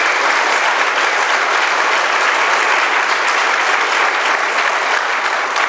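Audience applauding, steady dense clapping from a roomful of people.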